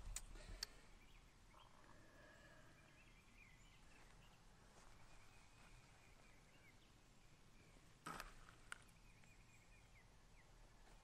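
Near silence: faint outdoor ambience with a few faint, distant chirps. A brief hiss comes about eight seconds in, followed by a click.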